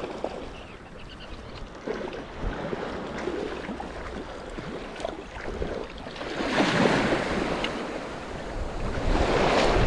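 Small surf waves washing in over the shallows, with a louder surge of foaming water about six and a half seconds in and another building near the end.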